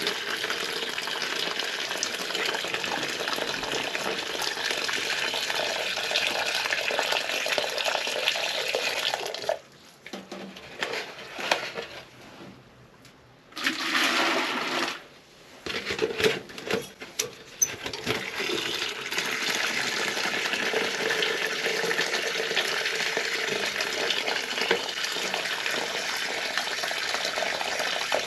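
Scalding hot water draining out of a flooded steam boiler's piping in a steady rush. It stops about ten seconds in, gives a few short spurts, and runs steadily again from about eighteen seconds on. The boiler is flooded because it is piped in wrong and its pressure was set too high.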